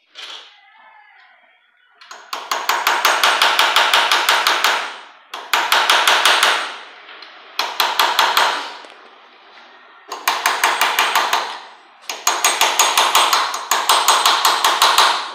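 Hammer tapping metal in five quick runs of rapid, evenly spaced strikes, each run lasting one to three seconds with short pauses between: the shaft of a Honda Pop 110i cylinder head being driven back into place on its new bearings.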